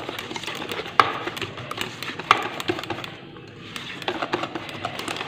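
A whisk beating pancake batter in a stainless steel bowl: quick clicks and scraping of the wires against the metal, with a couple of louder knocks on the bowl, pausing briefly about three seconds in.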